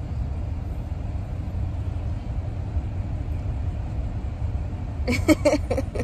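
Steady low rumble of a car's running engine heard inside the cabin, with a brief voice sound about five seconds in.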